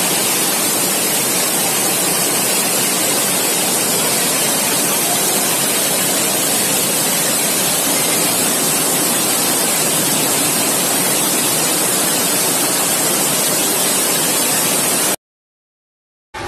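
Floodwater rushing down a street in a fast, churning torrent: a loud, steady rush of water that cuts off abruptly about a second before the end.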